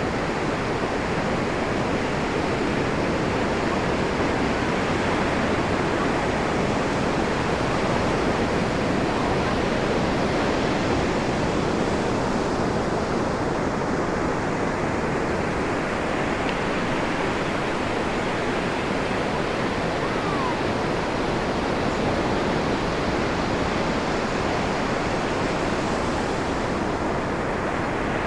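Ocean surf breaking and washing up a pebbly beach: a steady rush of water that swells and eases slowly, with no single crash standing out.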